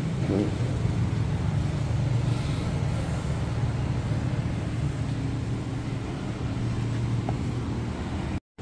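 A motor vehicle's engine running steadily, a low even drone with a constant hum. It cuts out abruptly for an instant near the end.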